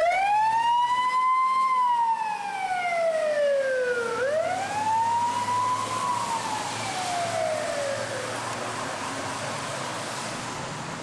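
Emergency vehicle siren wailing: it rises quickly to a high pitch, slides slowly down, rises again about four seconds in, then slides down and fades.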